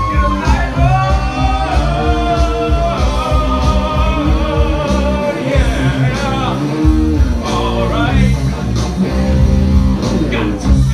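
A rock band playing live: a man singing into a microphone, with pitch sliding up and down, over electric guitars, bass guitar and drums.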